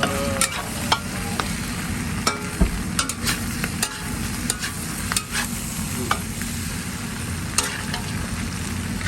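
Mutton pieces frying in hot oil over high heat, sizzling and crackling, with scattered sharp clicks and clacks from stirring in the pan.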